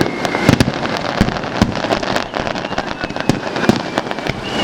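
Aerial fireworks bursting: irregular booms and sharp cracks several times a second over a continuous crackle, echoing off the surrounding mountains.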